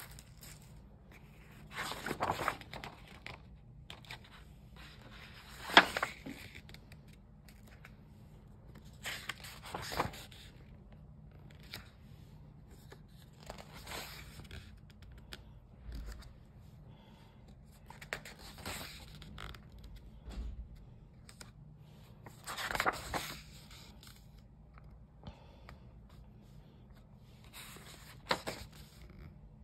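Paper pages of a sketchbook being turned by hand, one at a time: a short rustle and swish of paper about every four seconds, around seven turns in all.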